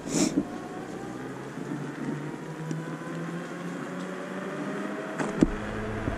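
IO Hawk Legend lite e-scooter's electric motor whining while riding, its pitch rising slowly as it gathers speed. A brief rush of noise comes at the start and a couple of clicks about five seconds in.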